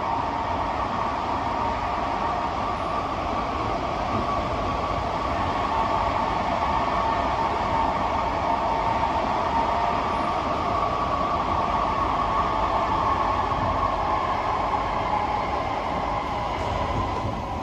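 Kawasaki–CSR Qingdao Sifang C151B metro train heard from inside the passenger car while running: a steady rumble of wheels on rail with a motor whine, which starts to fall in pitch near the end as the train slows for the station.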